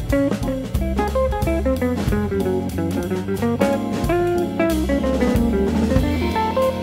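Background music: an upbeat jazzy tune with plucked guitar over a drum kit.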